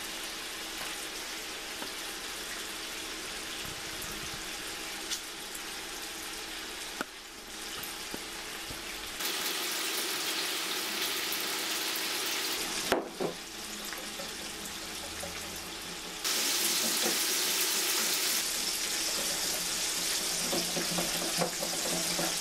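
Bacon frying in a pan, a steady sizzle that jumps louder and softer a few times.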